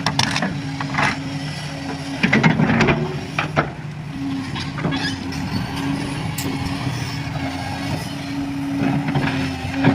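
A heavy machine's engine running steadily, with scattered metallic clanks and knocks, several of them close together a couple of seconds in.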